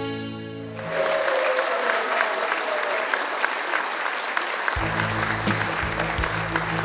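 Audience applauding after a sung Schlager song: the song's last chord dies away, and clapping starts about a second in and carries on steadily. Soft instrumental music comes in under the applause about five seconds in.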